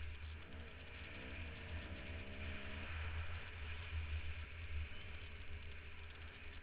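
Dirt bike ride heard through a helmet-mounted camera: wind buffeting the microphone with a heavy, uneven rumble, and the motorcycle engine note rising in pitch about a second in, holding steady briefly, then fading back into the wind noise.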